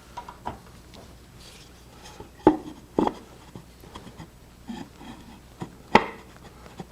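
Turned hard-maple pieces knocking and rubbing together as a box lid is handled and tried against its recess, with the lathe stopped. There are sharp wooden knocks about two and a half and three seconds in and a louder one near six seconds, with light scraping between them.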